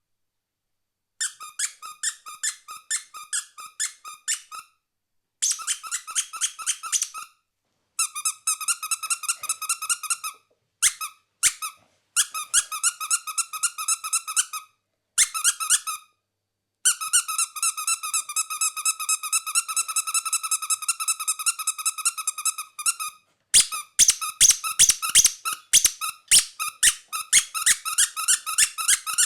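A squeaky toy squeezed over and over, giving quick runs of short, high squeaks at several a second with brief pauses between runs. The squeaks run together for several seconds past the middle and come faster and louder near the end.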